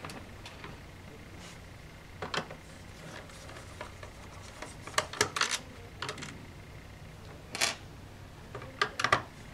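Light clicks and taps of a screwdriver and small screws as screws are taken out of a laptop's case and set down. The clicks come one by one, with quick clusters about five seconds in and near the end.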